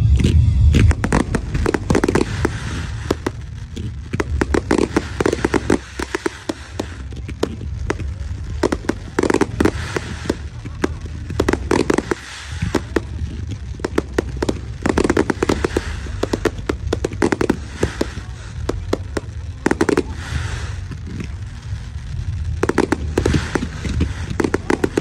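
Fireworks display: a continuous barrage of sharp bangs and crackling from aerial shells and comets, over a steady low rumble.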